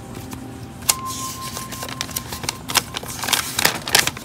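Gloved fingers clicking and tapping on the plastic buttons and case of a Westclox projection alarm clock: one press about a second in sets off a short single-tone beep, then a quick run of clicks and taps follows near the end.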